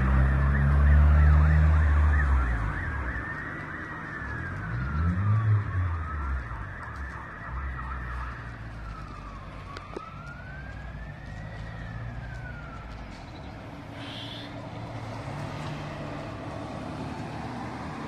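An emergency vehicle's wailing siren, rising and falling slowly, that fades out about thirteen seconds in. A heavy low rumble is loudest in the first two seconds and again around five seconds in.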